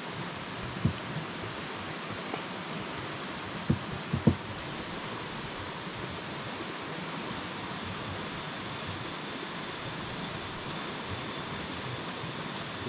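Steady outdoor background hiss, with a few short soft knocks in the first few seconds as a cooking pot and spoon are handled. A faint steady high tone comes in about halfway through.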